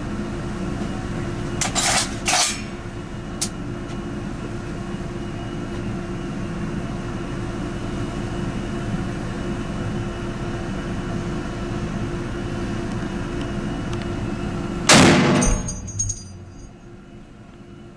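A Barrett M107 .50 BMG semi-automatic rifle fires one shot about 15 seconds in: a single very loud, sharp report, followed by about a second of high metallic ringing, which shooters at the range put down to the rifle's springs vibrating after the shot. About two seconds in come two quick clacks and then a click, with a steady hum underneath throughout.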